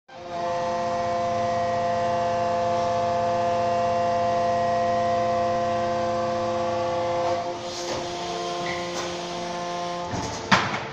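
Negri Bossi V480 injection molding machine running: a steady machine hum made of several steady tones, which drops and changes about seven seconds in. A single sharp knock comes near the end.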